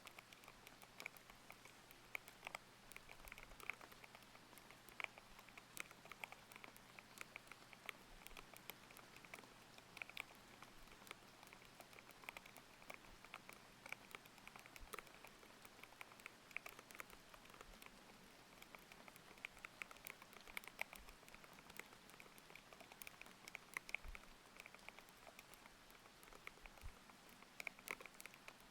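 Mechanical keyboard with Aqua King linear switches being typed on continuously: quick, irregular, thocky keystrokes, quiet, over a steady layered rain hiss.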